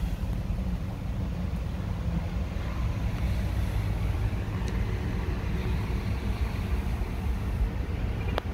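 Jeep Wrangler Rubicon's 3.6-litre V6 idling in Park, a steady low rumble heard from inside the cabin. A single sharp click near the end.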